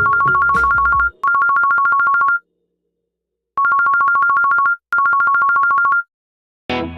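Telephone ringtone: a fast electronic trill between two tones, ringing in two double rings (two bursts of about a second each, a silent pause, then two more). Background music comes in near the end.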